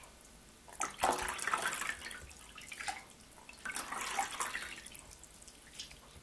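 Hot meat broth poured from a ladle through a fine plastic sieve into an enamel pot, splashing and trickling twice: about a second in and again about four seconds in.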